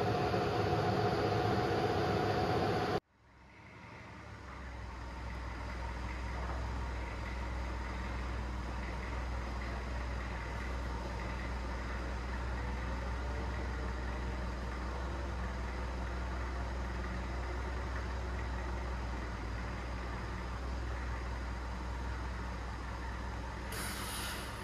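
A steady machine hum cuts off abruptly about three seconds in. Then a forklift truck's engine runs steadily at low revs as it carries a heavy steel tractor wheel rim on its forks, a low even drone.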